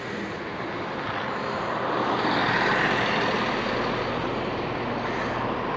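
A passenger train running through the station, a steady rushing rumble that swells about two seconds in.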